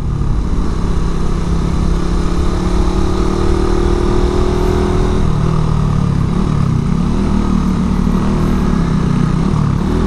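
Suzuki Satria F150 Fi's 150 cc single-cylinder engine pulling the motorcycle up a steep climb, with wind rushing over the microphone. The engine note holds steady for about five seconds, then wavers up and down as the throttle changes.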